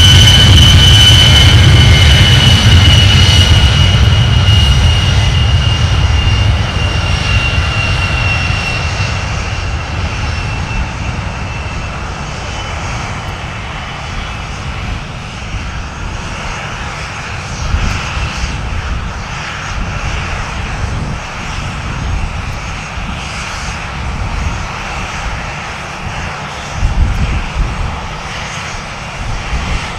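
The A-10 Thunderbolt II's twin General Electric TF34 turbofan engines running. A loud high whine with a low roar beneath slowly falls in pitch and fades over the first ten seconds as the jet moves away. After that a steadier, more distant jet noise continues through its takeoff run.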